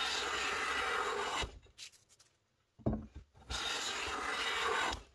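Metal bench plane taking two long, even strokes along a solid ash table leg, shaving its inside taper down toward the layout line, with a short knock between the strokes.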